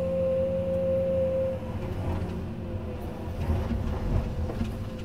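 Komatsu PC210 excavator's diesel engine running with a low rumble and a steady high whine, which weakens about a second and a half in; a few knocks and clunks follow.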